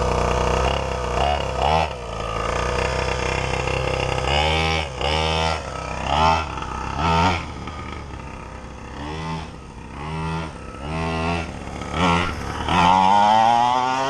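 1/5 scale Primal RC Raminator monster truck's two-stroke gasoline engine idling steadily, then revved in about ten short bursts, each rising and falling in pitch, with a longer rev near the end as the truck drives off.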